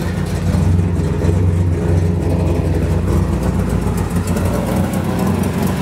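1957 Chevrolet 3100 pickup's 383 stroker V8 idling steadily at a low, even pitch, heard through its headers and dual exhaust with Flowmaster mufflers.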